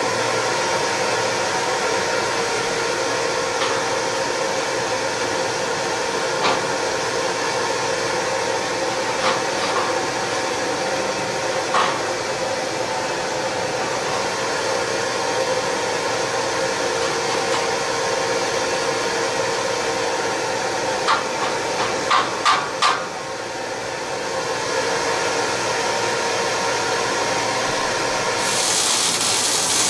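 Steady drone of a blower in a metal shop, with a few sharp clicks, several close together about two-thirds of the way in. A bright hiss comes in near the end.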